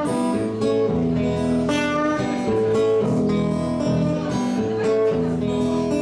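Acoustic guitar strummed in a steady rhythm, ringing chords: the instrumental lead-in to a song before the vocal comes in.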